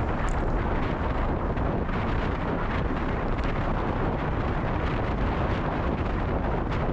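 Steady rush of wind buffeting the microphone of a camera on a moving bicycle.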